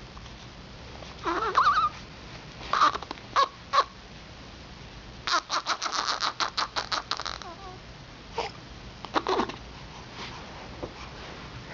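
Short, sharp animal calls in bouts. A few single calls come first, then a rapid run of about a dozen chattering calls, about six a second, in the middle, then a couple more calls.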